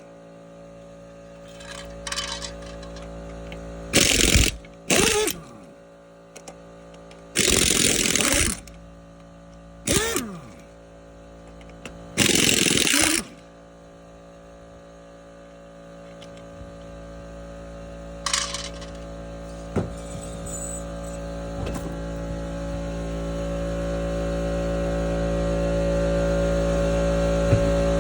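Raised left front wheel of a 2001 Mercury Grand Marquis being turned: short scraping chirps, several sliding down in pitch, from the front brake, which the mechanic traces to the worn-down pads and the caliper brushing the rotor. Over the last ten seconds a steady hum slowly grows louder.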